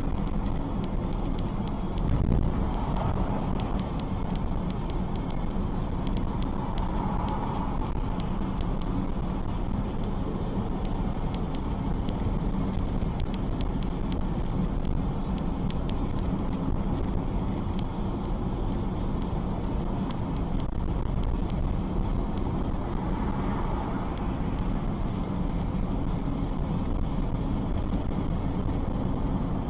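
Steady engine, tyre and road rumble of a car driving, heard from inside the cabin, with wind noise on the microphone. A small knock about two seconds in.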